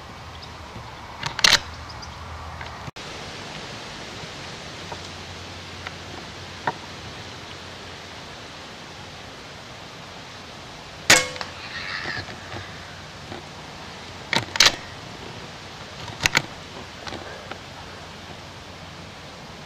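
Sharp, short shots from a .177 pre-charged air rifle (Logun Gemini): one about a second and a half in, then three more in the second half, the third a close double crack. They stand over a steady background hiss.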